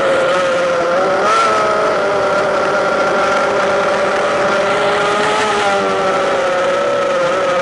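Drone's electric motors and propellers whining steadily, heard from the camera on board. The pitch wavers slightly, rising briefly about a second in.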